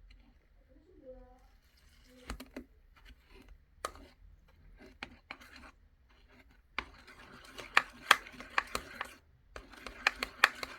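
Scattered sharp clicks and handling noise in a small room, thickening into a dense run of clicks and rustling about seven seconds in, with a short voice-like sound about a second in.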